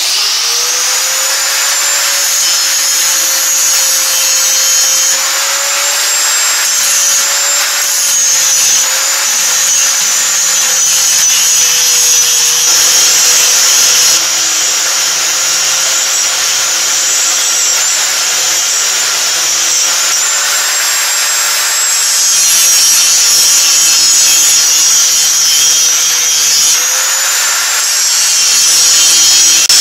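Angle grinder spinning up and then grinding down the steel studs of a wheel hub, a steady high whine over the harsh scrape of the disc on metal. The grinding trims about 3/16 of an inch off each stud so the hub will drop into the wheel.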